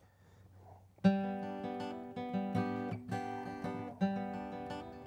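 Acoustic guitar strummed, starting about a second in: the opening chords of a song's introduction, each strum ringing on into the next.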